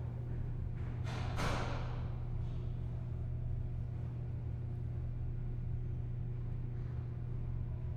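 Stairway ambience sound effect: a steady low droning hum, with two airy whooshes about a second in that fade away.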